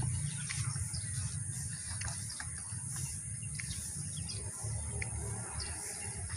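Small birds chirping in short, scattered notes over a steady low rumble and a faint steady high hiss.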